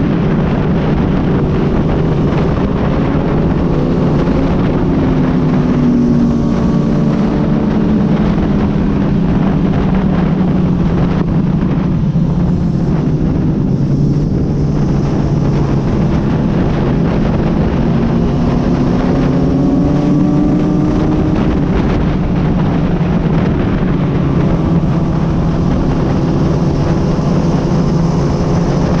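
Motorcycle engine running steadily in sixth gear at highway speed, with wind rushing over the microphone. Its pitch sags a little and then climbs again as the road speed eases off and picks back up.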